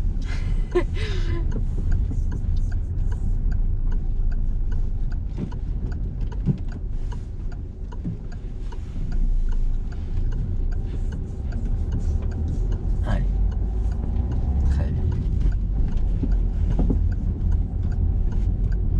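Steady low engine and road rumble inside a moving car's cabin, with the turn-signal indicator ticking evenly for a right turn.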